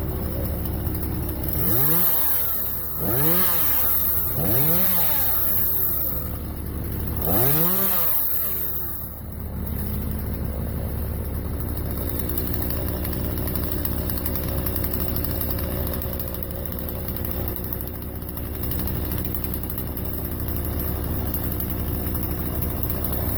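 Chainsaw revved four times in the first eight seconds, each time rising and falling in pitch, over a steady low engine rumble that runs throughout.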